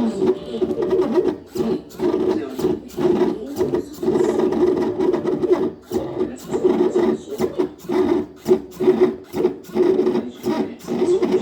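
Stepper motors of a homemade pen plotter whining as they drive the pen in short, rapid moves, starting and stopping many times a second, with sharp clicks between moves.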